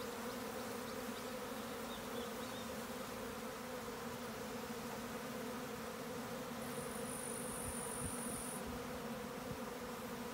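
Steady buzzing hum of many Japanese honeybees flying around the entrance of a wooden box hive. A thin high-pitched tone sounds over it for about two seconds past the middle.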